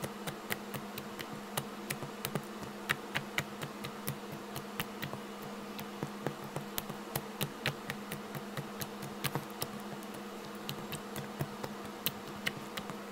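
Glossy purple slime being poked, pressed and folded by fingertips, giving off dozens of small sharp clicks and pops at an irregular pace. A steady low hum runs underneath.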